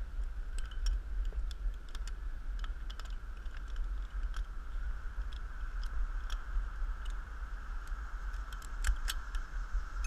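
Irregular light clicks and ticks, the kind that come from handling climbing gear, over a low rumble and a steady high-pitched drone.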